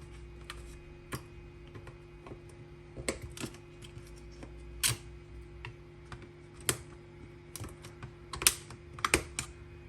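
Irregular sharp clicks and taps of hand tools and metal tabs against a laptop battery pack's casing and cells as the tabs are pried out, the loudest few in the second half.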